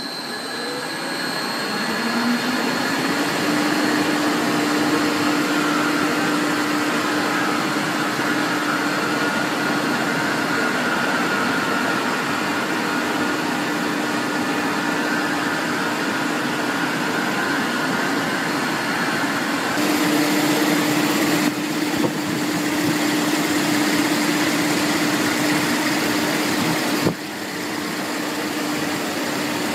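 HDTM-22 3-strand rope making machine running at high speed: a steady whirring hum over mechanical noise, rising in pitch during the first few seconds as it comes up to speed and then holding steady. A sharp click near the end.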